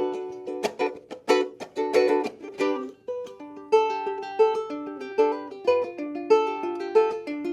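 KoAloha KSMR-13 curly mango pineapple soprano longneck ukulele played solo: quick strummed chords for about the first three seconds, then a picked melody of single notes over ringing chord tones.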